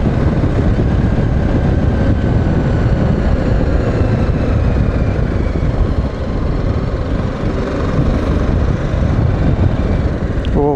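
BMW G310GS single-cylinder engine running under way, with heavy wind rumble on the microphone.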